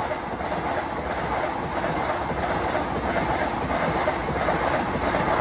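Vande Bharat Express electric trainset passing close by at speed: a steady, loud rush of wheel and rail noise.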